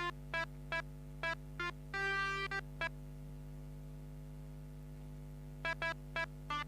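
Pianika (melodica) playing the telolet basuri bus-horn tune: a quick run of short, reedy staccato notes with one longer held note about two seconds in. After a pause of about three seconds the short notes start again near the end, over a steady low hum.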